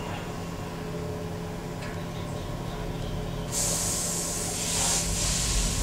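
Ganz-Mavag electric multiple unit standing at a platform with a steady hum, then a sudden loud hiss of compressed air released from its air system about halfway through.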